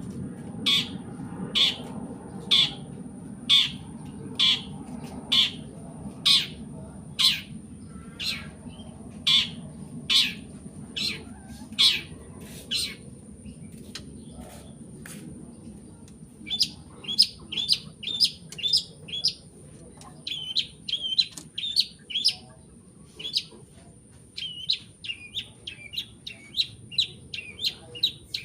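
A long-tailed shrike sings, first giving a run of sharp calls that sweep downward, about one a second. After a short pause it breaks into fast runs of chattering chirps, several a second. A faint steady high whine sits underneath throughout.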